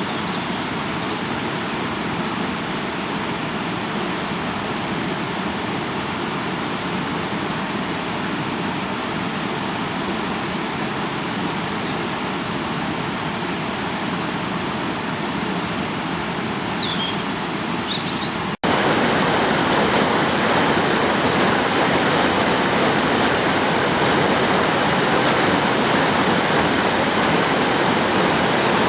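Rushing meltwater stream in spring flood, a steady rush of water that jumps louder at an abrupt cut about two-thirds of the way in. A few brief high chirps sound shortly before the cut.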